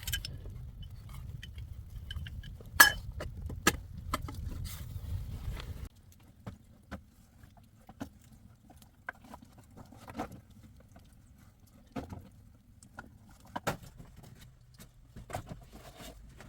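Scattered sharp clicks and clinks of hard objects, the loudest about three seconds in, over a low rumble that cuts off abruptly about six seconds in.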